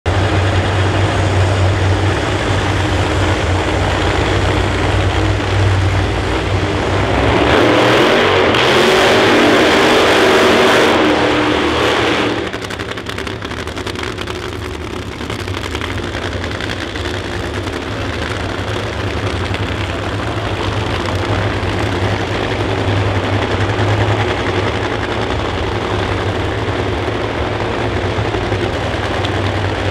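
Nitro funny car engines idling with a steady low drone. About eight seconds in, a much louder, harsher stretch of about five seconds as an engine is run hard for the burnout, then the idle drone returns.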